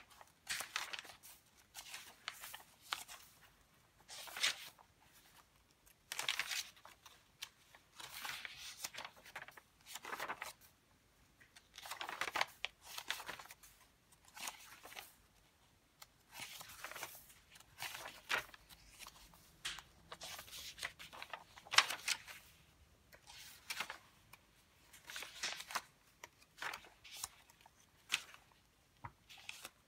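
Paper pages of a handmade junk journal being turned by hand, rustling in short, irregular bursts about once a second.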